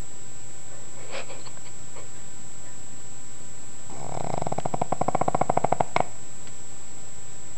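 Pug snoring: a single snore about four seconds in, a fast fluttering rattle of about eighteen pulses a second that grows louder for two seconds and ends abruptly with a click. A few faint sniffs come before it.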